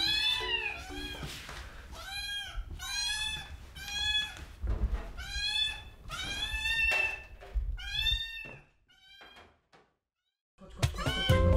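Kittens meowing insistently over and over, high-pitched calls about once or twice a second, begging to be fed. The calls stop about nine seconds in.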